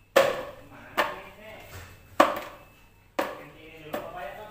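Salted squid pieces being handled and dropped in a plastic basin of hot water: five sharp wet knocks about a second apart, each trailing off quickly.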